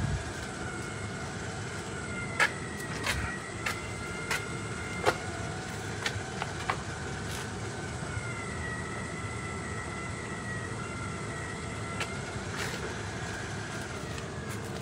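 A running Green Mountain pellet smoker: a steady hum with a thin, slightly wavering whine, and scattered sharp clicks and ticks.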